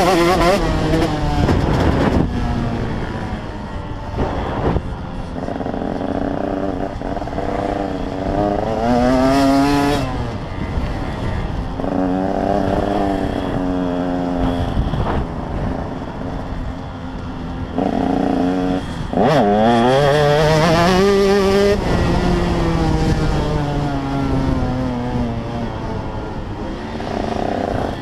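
Motocross bike engine heard from on board, revving up through the gears and dropping off again several times as it is ridden round the dirt track.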